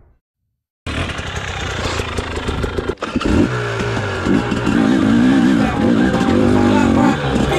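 KTM 250 EXC enduro motorcycle engine running under way, its pitch rising and falling repeatedly as the throttle is worked. It cuts in suddenly about a second in.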